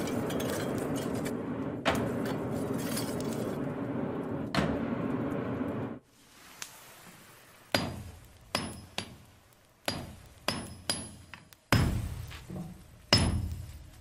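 Blacksmith's hammer striking hot steel on an anvil, about eight ringing blows spaced irregularly. Before them, for the first half, a steady low drone with a few heavy hits that cuts off suddenly.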